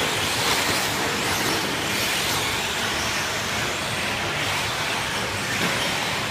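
A pack of electric 1/10-scale 4x4 short course RC trucks racing, their brushless motors making overlapping whines that rise and fall over a steady rushing noise.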